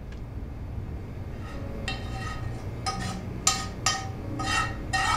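A metal spoon scraping and knocking against a metal pot as cooked food is scraped out into a plastic container: a run of about six ringing clinks starting a second and a half in, the loudest about three and a half seconds in, over a steady low hum.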